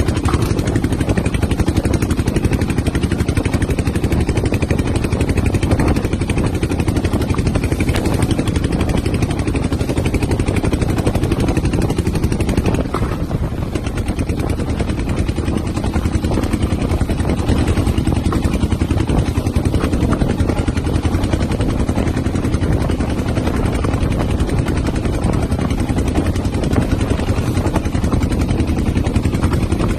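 Steady low rumble of a small boat's engine running at sea, mixed with strong wind buffeting the microphone. It eases briefly about halfway through.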